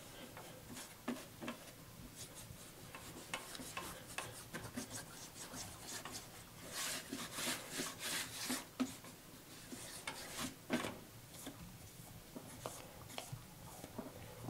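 Hands rubbing and scraping over the engine block's top surface, with irregular light scrapes and taps that come a little thicker around the middle.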